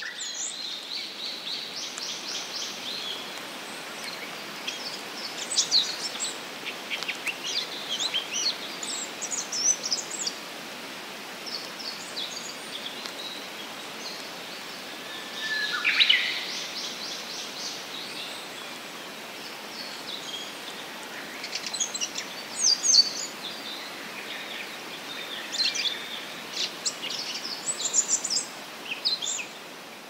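Asian brown flycatcher singing: bouts of rapid, high, thin twittering notes separated by pauses of a few seconds, over a steady background hiss.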